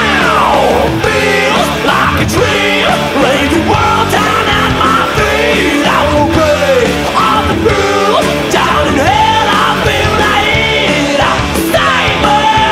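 Hard rock band recording playing loud and steady: electric guitar, bass guitar and drums, with a lead part bending up and down in pitch.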